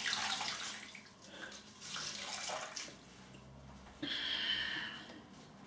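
Water running from a tap into a sink in short spells, the longest and steadiest about four seconds in.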